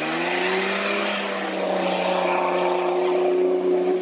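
Toyota Land Cruiser 70-series 4x4 engine held at high revs, its note climbing at the start and then staying steady, as the truck drives through deep muddy floodwater, with a heavy rush of splashing water.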